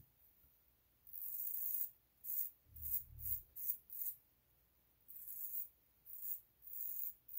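Max Sprecher straight razor scraping lathered stubble off the neck in a series of short strokes, each a crisp, high rasp. The first pass comes about a second in, then a quick run of shorter strokes, then a few more near the end.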